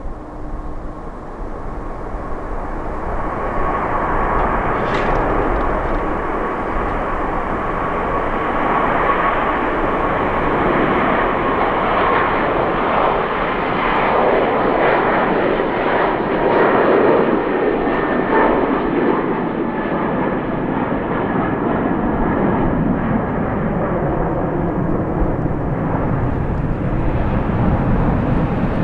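Jet airliner's turbofan engines, a loud steady rushing noise with a thin whine through the first half, and slowly sweeping changes in tone over the last several seconds as the plane passes.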